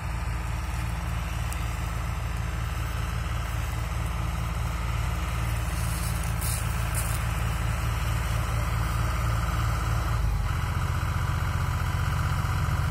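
Tractor diesel engine running steadily while hauling a heavy trailer load of sugarcane across a field, with a low pulsing note. The note changes about ten seconds in, and the sound grows slightly louder as the tractor draws closer.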